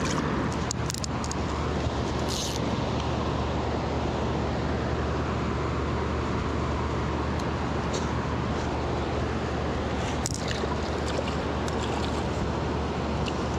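Steady rush of river water flowing over rocks, with a low rumble underneath and a few faint small clicks and splashes.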